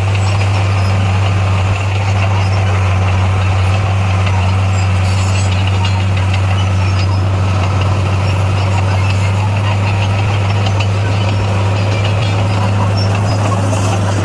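D58A bulldozer's diesel engine running at a steady speed: a constant low drone with no revving.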